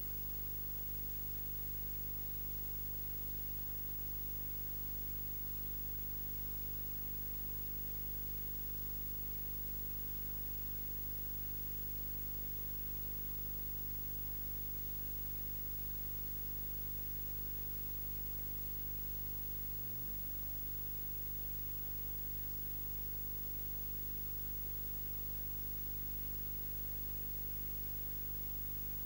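Steady electrical hum with many overtones over a bed of even hiss, with no room sound at all: camcorder audio recorded with the microphone unplugged. A brief glitch about two-thirds of the way through.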